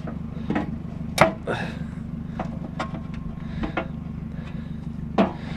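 Scattered sharp metal knocks and clinks from parts of a scrap barbecue grill being handled and pulled apart, the loudest about a second in, over a steady low hum.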